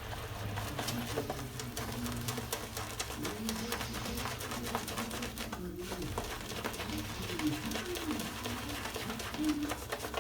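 Wet shaving brush being worked into shaving soap lather with rapid swirling strokes, giving a steady fine wet crackle.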